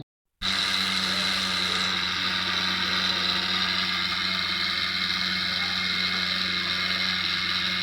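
Homemade tin-can turbine fan spinning at speed: a steady whir with a low hum, starting abruptly about half a second in.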